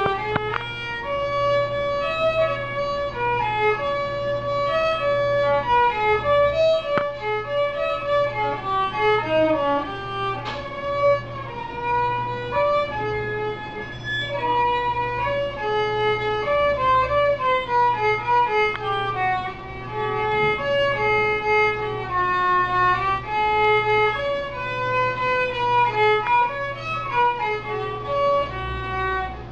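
A beginner's violin playing a slow melody of held notes, with uneven intonation that the player's own title card warns may grate on the ear. A steady low hum runs underneath.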